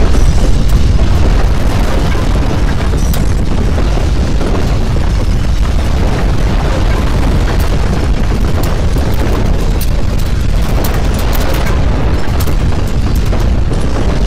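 Loud, steady deep rumble of an earthquake sound effect with scattered crackles, standing for violent ground shaking.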